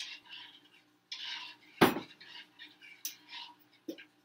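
A spoon stirring and scraping bulgur in a saucepan in short repeated strokes, with a loud sharp clink of the spoon against the pot a little under two seconds in and lighter knocks later.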